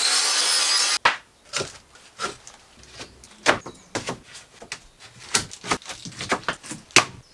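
A power saw cutting wood for about the first second, with a rising whine, stopping abruptly. After that come irregular sharp knocks and clacks of wooden cladding boards being handled.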